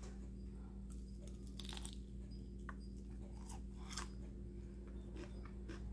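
A person bites into a crunchy fried chicken drumstick coated in sweet and spicy sauce, then chews it. The breaded crust crackles in short, scattered crunches, loudest about one and a half to two seconds in and again around four seconds.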